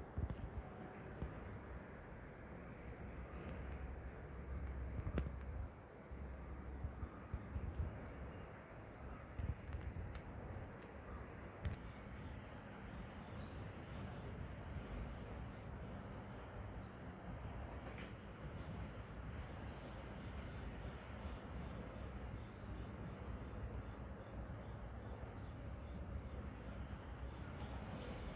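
Cricket chirping, a high, evenly repeated chirp that keeps going without a break, over a faint low background rumble.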